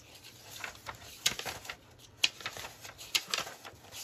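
Sheets of printed paper being leafed through by hand: a light rustle with about four crisp flicks as sheets are turned.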